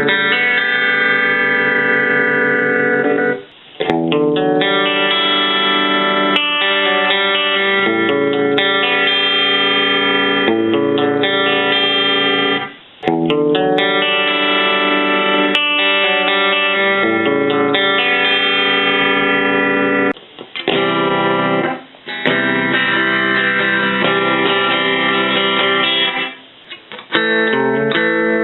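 Electric guitar played through a Roland Jazz Chorus combo amplifier, ringing chords in phrases with short breaks between them.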